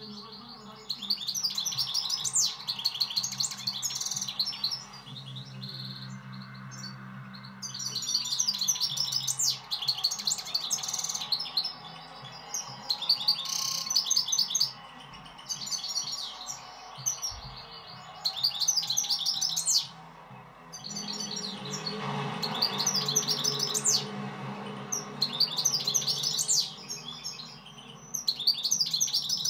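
Caged European goldfinch singing: bouts of fast, twittering song a few seconds long, with short pauses between them.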